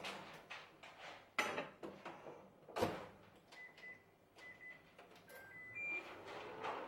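Microwave oven in use: three knocks as its door is handled, then a run of short electronic beeps as buttons on its control panel are pressed. Near the end the oven starts running with a low hum.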